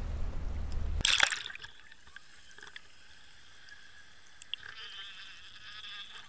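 Wind and boat rumble on an open boat, broken about a second in by a short splash-like burst, then the muffled hush of water heard by an underwater camera trailing a trolled lure, with a couple of faint ticks and a faint high whine near the end.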